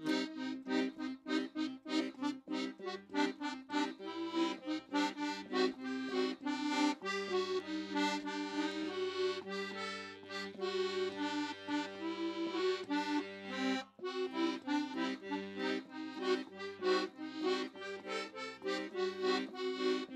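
Piano accordion playing an instrumental passage: a quick run of notes on the right-hand keys over sustained chords, with held low bass notes through the middle and a brief break about two-thirds through.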